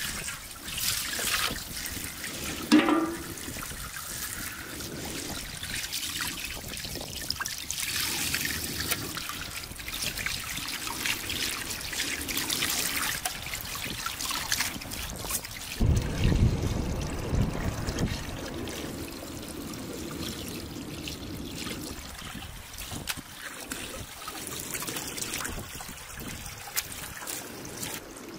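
Water running from a garden hose into a large metal basin as chunks of fish are rinsed and handled by hand, with splashing. About three seconds in there is one ringing metal clank, and the splashing grows louder for a couple of seconds about halfway through.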